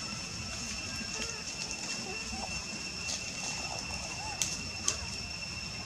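A steady, high-pitched insect drone over light rustling in dry leaf litter, with a few faint, soft calls from young macaques. Two sharp clicks come about four and a half seconds in.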